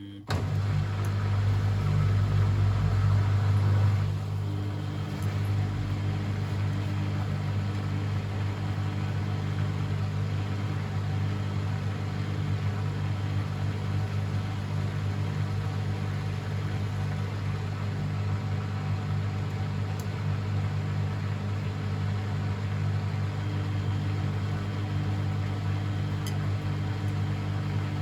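Beko WMD 46160 washing machine: a motor or pump starts suddenly and runs with a steady hum. It is louder for the first four seconds, then settles.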